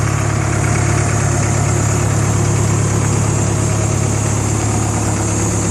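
Caterpillar E110B excavator's Mitsubishi diesel engine idling steadily.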